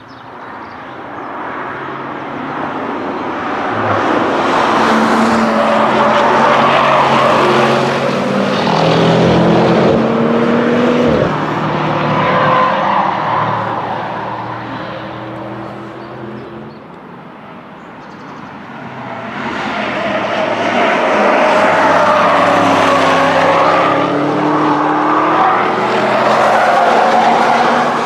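Two fast car passes at full throttle. Each engine note builds, holds with its pitch stepping as gears change, then fades. The first fades a little past halfway and the second builds a few seconds later; the second is a camouflaged 2020 Audi RS6 Avant prototype's 4.0-litre twin-turbo V8.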